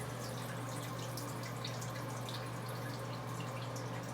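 Water running and dripping, with scattered small ticks over a steady hiss and a constant low hum.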